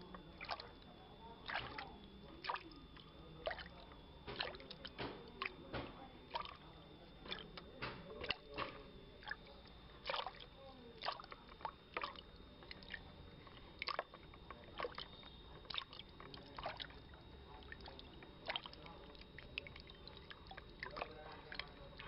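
Water sloshing and splashing in small irregular clicks and slaps, over a steady high-pitched whine, with faint voices in the background.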